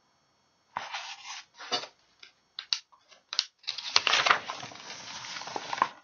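Pages of a paperback picture book being turned and handled: a string of short paper rustles and flaps, then a longer crinkling rustle through the second half.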